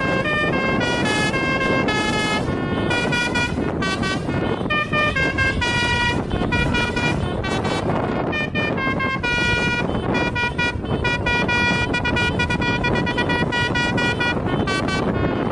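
Indonesian bus 'telolet' horns: multi-tone air horns playing quick melodic runs, jumping between notes several times a second and sounding almost without a break. A steady rumble of engine and road noise runs underneath.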